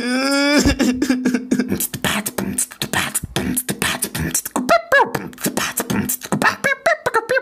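A brief rising vocal cry, then rapid human beatboxing: quick mouth-made drum clicks and hisses over a steady low note, with a few short sung vocal sounds.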